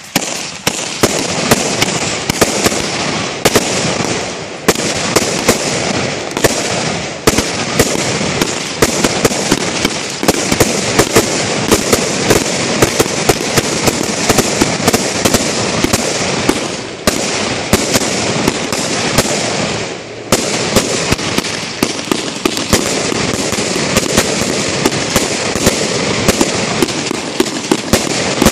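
Fireworks going off without a break: a dense crackle and hiss with two or three sharp bangs a second, easing briefly a few times.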